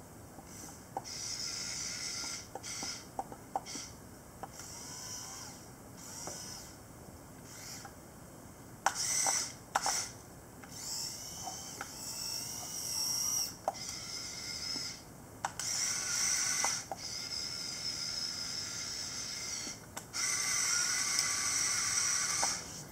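Kyosho radio-controlled toy Komatsu excavator's small electric motors and plastic gearboxes whirring in stop-start bursts of one to three seconds as the boom, arm, bucket and tracks move, with a few sharp clicks and knocks about nine to ten seconds in. The longest run of whirring comes near the end, as it drives off on its tracks.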